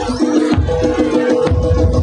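Loud music accompanying a Javanese kuda lumping dance, with drums beating a fast, even rhythm under a steady held note.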